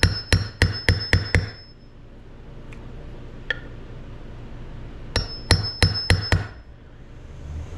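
Hammer taps seating a new gear-selector shaft oil seal in a Polaris RZR 170 transmission case: two quick runs of about six sharp metallic taps with a short ring, a few seconds apart.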